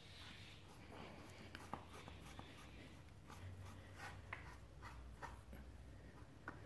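Faint scratchy rubbing and small clicks of a cloth wiping oil off a dirt bike's front fork tube and dust seal, close to near silence.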